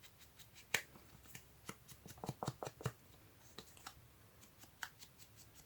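Faint dabbing and scraping of ink being applied to the edges of a paper ticket to age it: light taps and scratchy strokes of the inking tool on the paper, with a quick cluster of taps about two to three seconds in.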